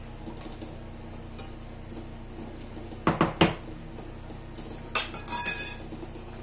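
A metal fork knocking against a metal cooking pan: three quick clinks about three seconds in, then a clattering knock that rings on briefly, about five seconds in.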